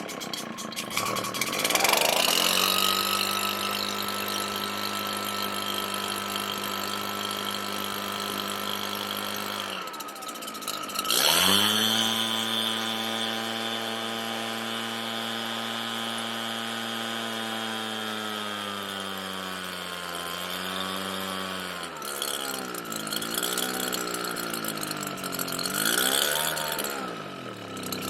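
Redmax EBZ7500 backpack blower's two-stroke engine cold-started and running, dying out about ten seconds in, starting again with a rise in revs, then sagging near the end and surging up and down in pitch. The runs-and-dies and surging behaviour is the fault the owner puts down to the carburetor.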